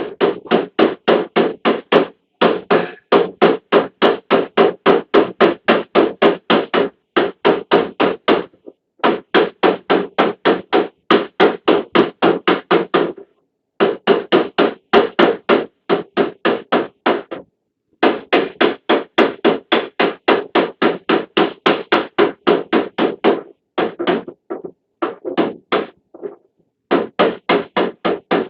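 Rapid hammer taps on the sheet metal of a Peugeot Boxer van's rear door, about five strikes a second, in runs of a few seconds with short pauses between: tapping out a dent.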